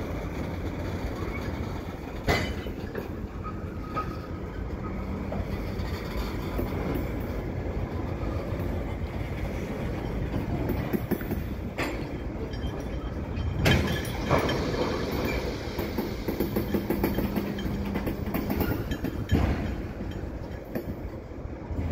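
A freight train's cars, tank cars nearest, rolling slowly through a rail yard: a steady rumble of wheels on rail with clicks over joints and a few sharp metallic clanks spread through.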